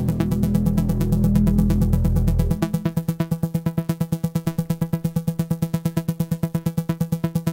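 Electronic background score: a low synthesizer drone under a rapid pulsing pattern. The low drone cuts out about two and a half seconds in, leaving the fast, even pulse.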